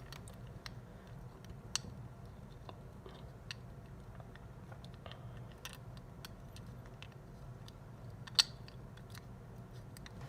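Light, scattered clicks and taps of small metal lock parts being handled as two ball bearings are set into the body of a Master Lock 410 LOTO padlock, with one sharper click late on, over a faint low hum.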